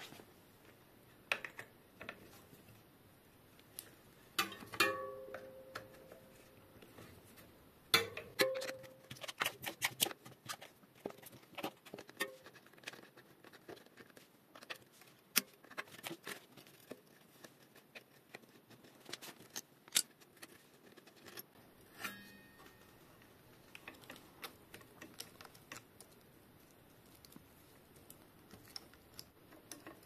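Hex key and hands working the mounting bolts of a Shimano BR-MT200 hydraulic disc brake caliper to take it off the fork: scattered metallic clicks and ticks, a few of them ringing briefly.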